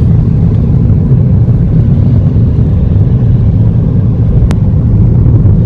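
A car driving, with a steady low rumble of road and engine noise and a single sharp click about four and a half seconds in.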